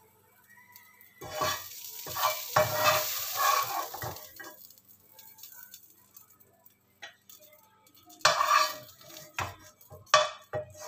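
A spatula scraping stir-fried green beans off a non-stick frying pan and onto a plate. There is a run of scraping for about three seconds, then a few short scrapes near the end.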